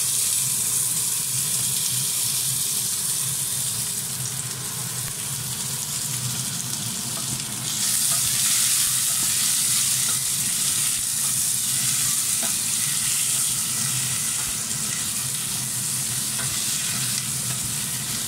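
Onion, ginger and tomato sizzling in hot oil in a stainless steel saucepan while a wooden spoon stirs them: the sauté of the aromatics. The sizzle is a steady hiss that grows louder about eight seconds in.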